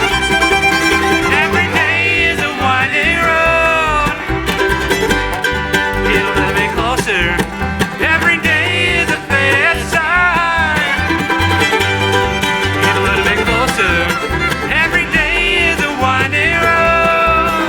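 Acoustic bluegrass band playing an instrumental break, the five-string banjo to the fore over guitar and fiddle, with sliding, bending lead notes and a steady low pulse.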